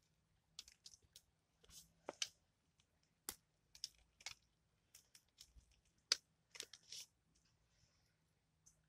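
Eating sounds: faint, scattered clicks and crackles as crispy breaded fried fish is picked apart by hand, the meat pulled off the bones, and eaten.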